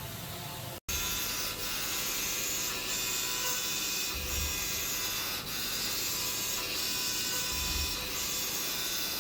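Machine-shop noise from a CNC machine tool cutting metal: a steady, high hissing whir with faint steady tones and a slight pulse about once a second, starting abruptly a little under a second in.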